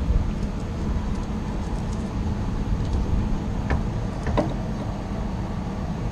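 Steady low rumble of background noise, with two light clicks a little under a second apart about four seconds in.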